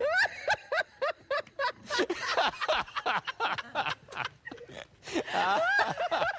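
People's voices in short, broken bursts of yelps, gasps and laughter, sliding up and down in pitch, reacting to a pelican pinching a man on the backside.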